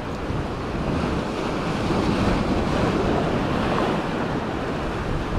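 Waves washing against jetty rocks, with wind buffeting the microphone; the rushing noise swells gradually.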